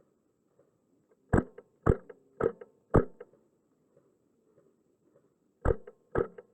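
Wolverine MTW HPA airsoft rifle fired semi-automatically: four sharp shots about half a second apart, a pause of a couple of seconds, then two more at the same pace near the end.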